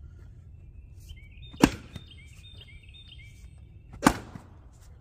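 Splitting axe striking a firewood round twice, about two and a half seconds apart: two sharp cracks of the blade biting into the wood.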